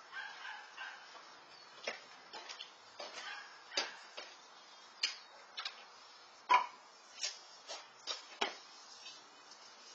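Irregular clicks and knocks of footsteps on a concrete patio and food dishes being handled and set down, the sharpest knock a little past halfway.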